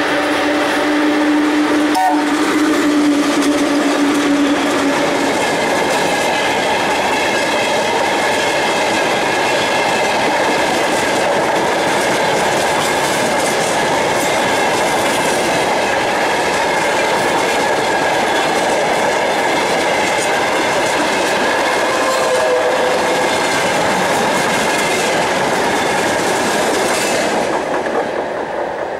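VL10U DC electric locomotive and its short freight train of open gondola wagons passing close by. A steady tone sounds from the locomotive for the first five seconds, with a sharp click about two seconds in. Then comes the steady rumble and clickety-clack of the wagons' wheels on the rails, fading near the end as the last wagon goes by.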